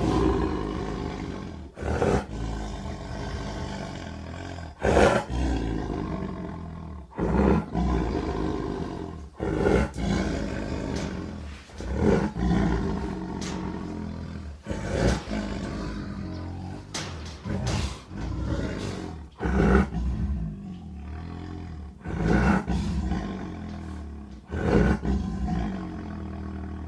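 Siberian tiger growling: a string of deep growls, each starting loud and tailing off into a low rumble, one about every two to three seconds.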